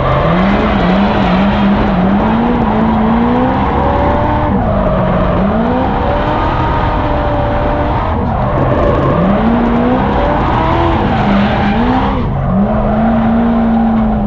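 Drift car engine revving up and down over and over while its tyres screech through a slide. The tyre noise and revs drop briefly about four and eight seconds in and again near twelve seconds. Near the end the engine holds steady revs.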